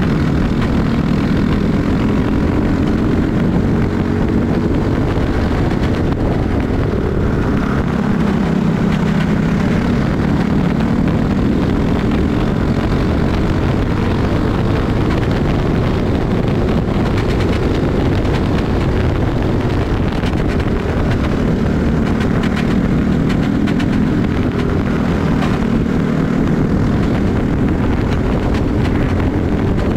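Single-cylinder four-stroke kart engine running hard at racing speed, its pitch climbing along the straights and dropping back into the corners.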